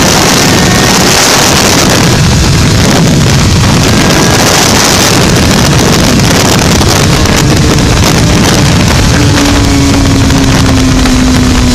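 Suzuki sport motorcycle at high speed heard from an onboard camera: loud, steady wind rush over the microphone, with the engine running underneath. Near the end a steady engine note comes through and slowly drops in pitch as the bike slows.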